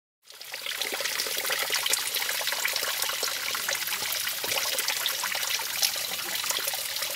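Small seep of water trickling and dripping from a mossy, fern-covered bank into a shallow sandy pool, a steady patter of drops that comes in a moment after the start.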